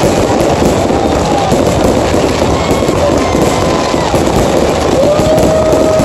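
Fireworks display in a dense barrage: many aerial shells bursting and crackling over one another with no break.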